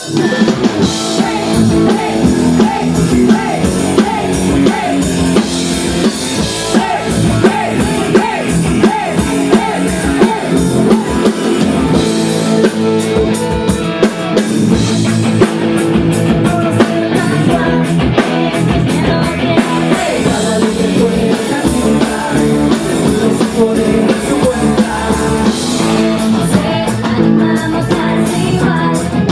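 Live rock band playing a song with singing over electric guitar and a drum kit, starting suddenly and running on loudly.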